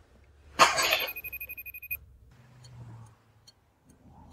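Cell phone ringing with a fast electronic trill, starting with a short noisy burst and cutting off suddenly about two seconds in.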